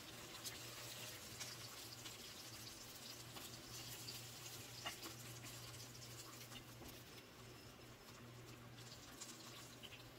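Faint sizzling and crackling of hot frying oil in a pan, with scattered small pops, over a low steady hum.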